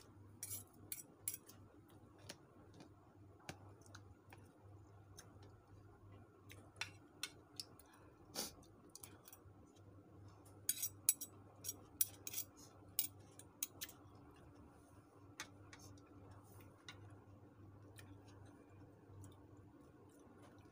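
A metal spoon and fork click and scrape against a plastic bowl of rice in scattered, irregular clicks, with a busier run of clicks about halfway through. A faint, low, steady hum sits underneath.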